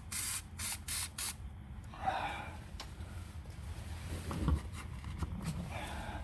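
Aerosol can of rust inhibitor spraying in four short hissing bursts within the first second and a half, followed by quieter handling noises.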